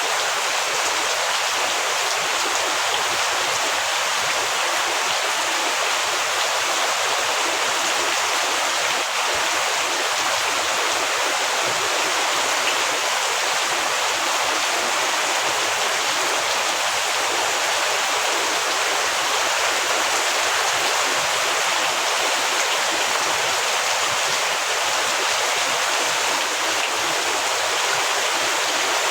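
Heavy rain falling steadily, an even, unbroken hiss with no separate drops standing out.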